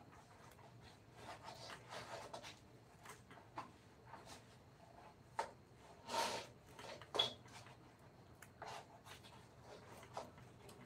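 Faint, irregular scraping and light tapping of a hand tool working wood, with a longer scrape about six seconds in and a sharp click just after.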